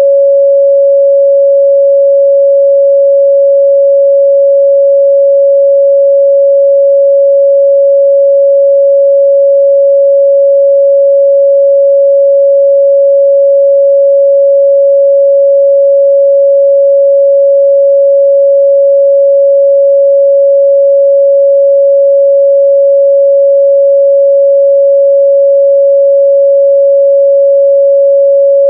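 Steady 557 Hz sine-wave test tone, a single pure pitch held at a constant loud level without a break.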